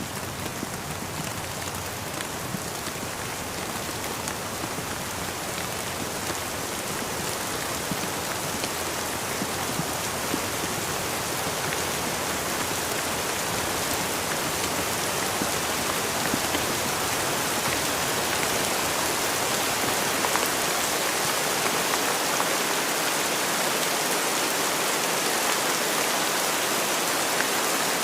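Steady rain: an even hiss of falling drops with scattered ticks of single drops, growing gradually louder.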